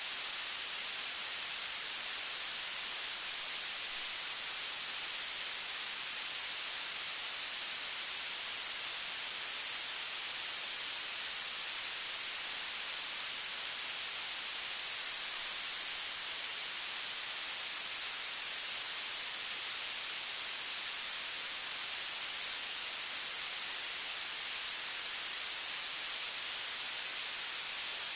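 Steady static hiss, even and unbroken, strongest in the high range, with no other sound standing out of it.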